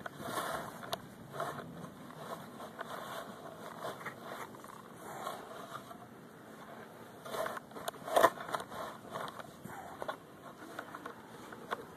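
Loose soil being scraped and handled while digging a plug for a detector target: irregular rustling and crumbling, with a sharper knock about eight seconds in.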